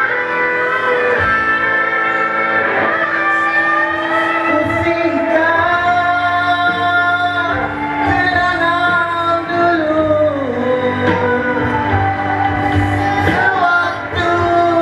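Pop band music with guitar and a sustained, gliding melodic lead line over steady accompaniment.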